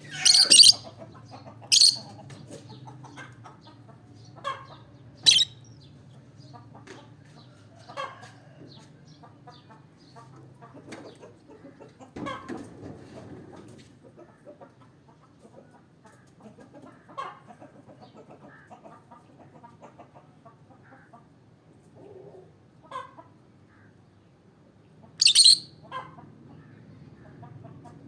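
Peach-faced lovebird of the olive colour mutation giving short, sharp, high-pitched chirps at irregular intervals, with the loudest calls in the first few seconds and again about 25 seconds in, and fainter chirps in between.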